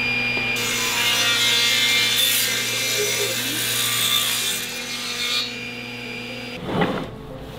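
Multi-blade gang rip saw running with a steady hum while its feed roller pushes a board through the blades, ripping it into strips. The cutting hiss dies away about five seconds in, and a brief loud clunk comes near the end.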